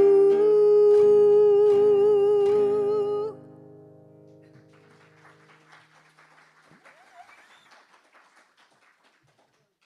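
A solo singer holds the song's last note with vibrato over strummed acoustic guitar, cutting off about three seconds in while the guitar rings away. Faint scattered clapping follows.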